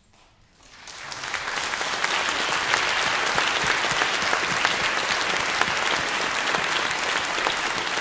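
Audience applauding: a crowd's clapping starts about a second in, swells quickly and holds steady.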